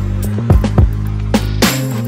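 Background music: a steady low bass line with sharp drum hits at an uneven rhythm.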